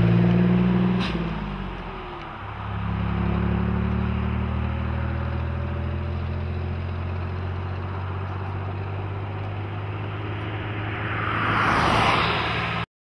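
Magirus FA 170D11 truck's air-cooled Deutz diesel engine pulling away through its new upright stainless exhaust. The engine note drops and fades about a second in during a gear change, then pulls steadily again. Near the end the rushing noise of a passing car swells up over it.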